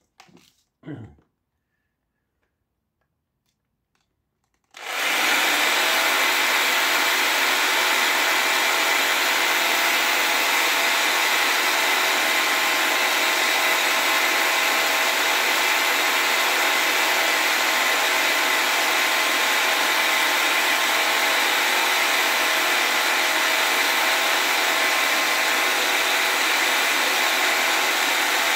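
A brief knock about a second in, then a handheld cordless power tool starts up suddenly about five seconds in and runs steadily, cutting into the copper windings of an electric motor's stator, a continuous high whine that does not change.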